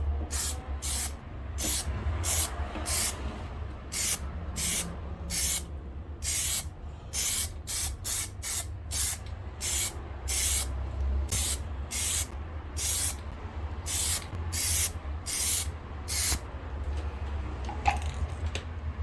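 Aerosol can of Plasti Dip glossifier spraying in short bursts, about two a second, laying a light coat over a plastic-dipped part; the spraying stops near the end. A steady low hum runs underneath.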